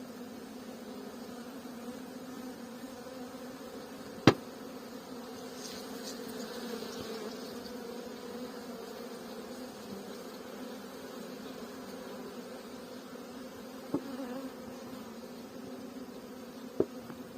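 Many honeybees buzzing around their hives in a steady hum. Three sharp knocks cut through it: a loud one about four seconds in and two softer ones near the end.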